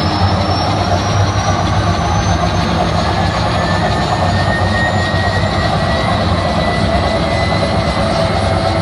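Loud nightclub dance music and crowd noise blended into a dense, steady wash with a heavy low end. Thin tones rise slowly in pitch throughout, like a build-up sweep.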